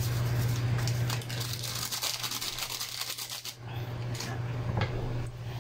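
Plastic foil sachet of sinigang seasoning mix crinkling and crackling as the powder is shaken out into the pot, over a steady low hum.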